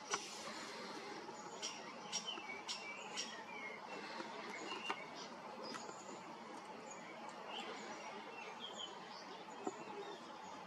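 Short, faint bird chirps, scattered irregularly over a steady background hiss, with a few sharp clicks, the loudest just at the start.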